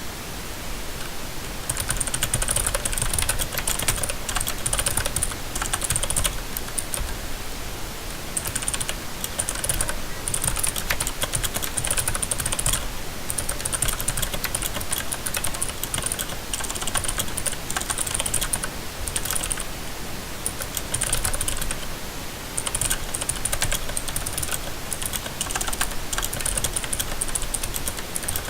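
Continuous typing on a mechanical keyboard with blue (clicky) switches fitted with O-ring dampeners: rapid crisp clicks in runs, with brief pauses between bursts.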